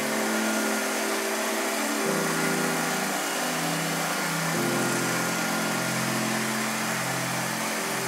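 Robot vacuum running across a wooden floor: a steady motor hum with a whirring hiss, its pitch shifting down about two seconds in and again about halfway through.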